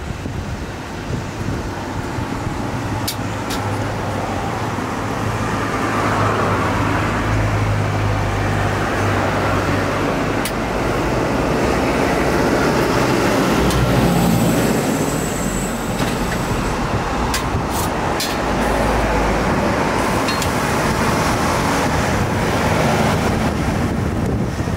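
Steady mechanical rushing noise with a low hum, broken by a few sharp clicks.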